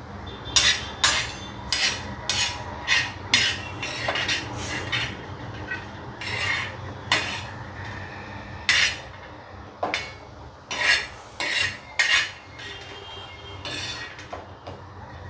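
Metal spoon scraping crushed green-chilli thecha off a flat iron tawa and clinking against a steel bowl, in quick irregular strokes that thin out in the second half.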